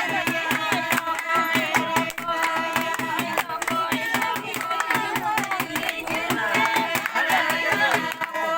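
Music: a singing voice over a steady percussive beat.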